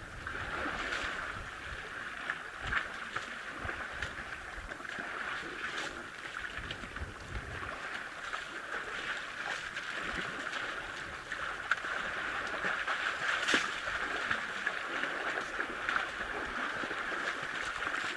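Water splashing and churning as young African elephants swim and roll in a waterhole. A steady sloshing runs throughout, with sharper splashes every second or few seconds.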